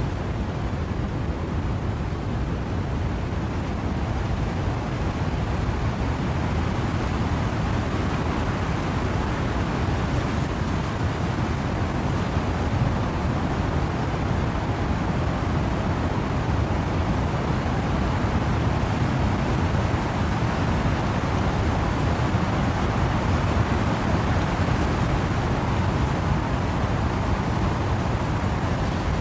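Wind-blown rain and wind in trees: a steady, even rushing noise, heaviest in the low end, with no single drops or gusts standing out.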